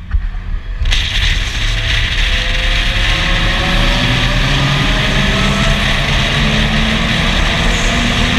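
Car on the move: steady engine and road noise, with the engine note slowly rising in pitch.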